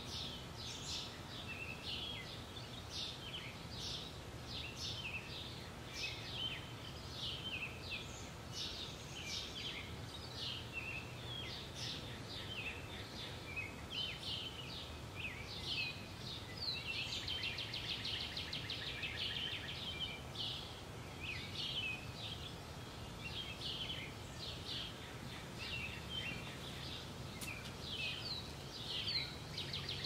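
Many small songbirds chirping and singing, with a fast trill a little past halfway, over a faint low outdoor hum.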